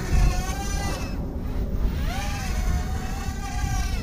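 Eachine Racer 130 mini racing quadcopter's 4000kv brushless motors whining in flight, the pitch sagging about a second in and climbing again about two seconds in as the throttle changes. The whine carries the frame buzz that the pilot hears as vibration in the frame. Wind rumbles on the microphone.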